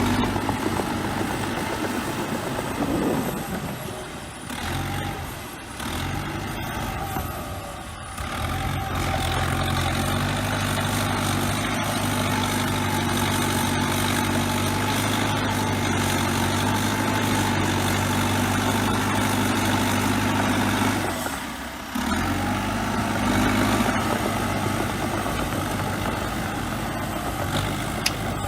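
Bulldozer's diesel engine running steadily, with a few brief dips in level and a sudden break about twenty-two seconds in.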